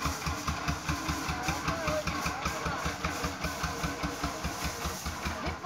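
An engine running steadily with a rapid low thudding, about ten beats a second.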